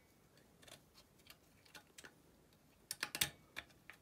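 Faint, scattered light metal clicks and taps of a circlip and small parts being fitted by hand onto a Fiat 126 engine's aluminium crankcase, with a quick cluster of sharper clicks about three seconds in.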